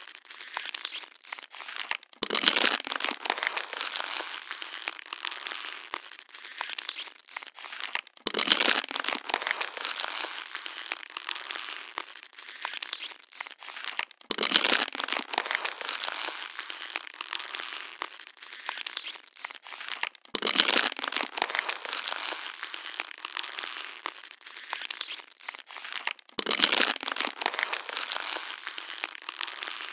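Plastic water bottle being crushed, crackling and crinkling throughout. A loud crunch comes about every six seconds, five times, each fading into lighter crackles.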